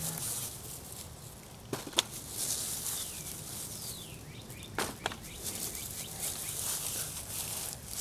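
Quiet outdoor background with a few short taps and rustles as freshly dug potatoes are set down on a paper grocery bag: two near two seconds in and two about five seconds in.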